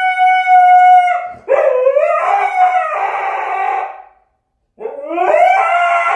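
Husky howling in long drawn-out calls. A held howl ends about a second in, then a second rising howl turns rougher and fades out about four seconds in. A third howl rises after a short pause near the end.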